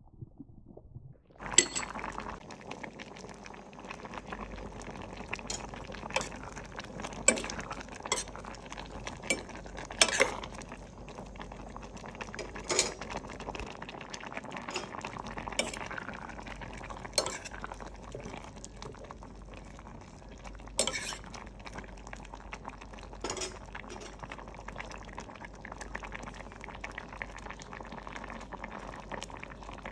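A pot of curry simmering with a steady bubbling hiss, while a metal ladle stirs it and clinks against the stainless steel pot every few seconds.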